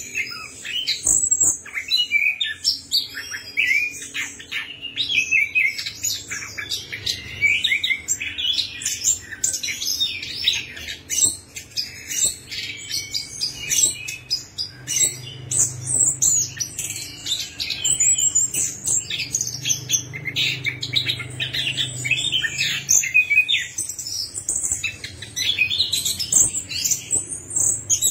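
Chestnut-capped thrush singing a fast, unbroken medley of high chirps, trills and short whistles, with only brief gaps.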